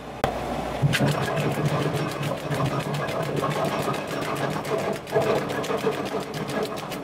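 Tractor-PTO-driven branch logger chopping a branch as it is fed in: a rapid, even clatter of cuts, several a second, over the tractor engine running at about 2,000 RPM. The clatter picks up about a second in.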